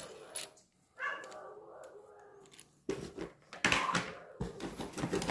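A dog whining faintly in the background, then loud rustling and knocking from gloved hands handling a metal honing guide, the loudest part in the second half.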